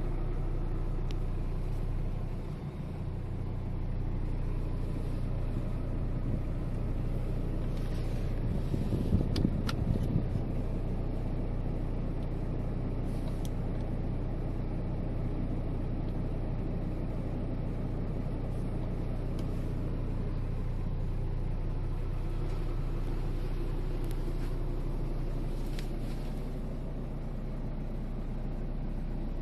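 Renault Duster's engine heard from inside the cabin, running with a steady low hum at idle. About nine seconds in, the sound swells briefly and a few sharp clicks are heard.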